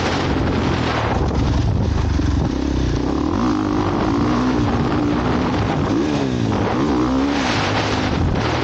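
Motocross dirt bike engine running hard around the track, its pitch rising and falling as the throttle is opened and closed.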